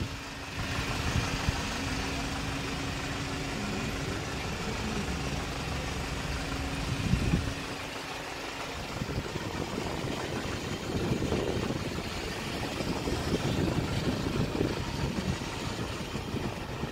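Kia Bongo III wrecker truck's engine idling steadily, with a brief thump about seven seconds in and wind buffeting the microphone in the second half.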